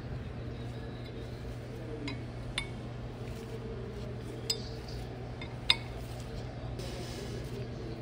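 Steel open-end wrench clinking against a brass-ended threaded connector as it is tightened into the pump housing: a few sharp, separate metal clicks, the loudest about six seconds in, over a steady low hum.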